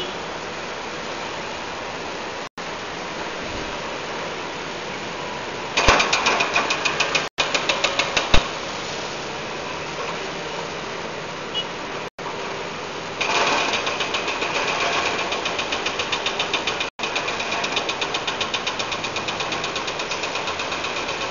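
Concrete mixer truck's diesel engine and drum running as it discharges concrete: a steady mechanical drone that turns into a rapid rhythmic clatter, about five beats a second, about six seconds in, eases off, and returns about thirteen seconds in.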